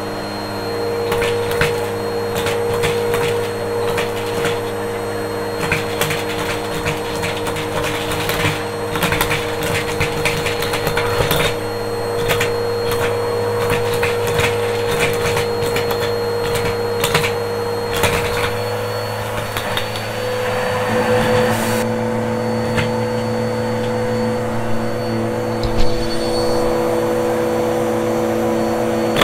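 Upright vacuum cleaner running steadily on a shag rug, with frequent clicking and clattering as plastic bottle caps are sucked up. The motor's tone shifts about twenty seconds in.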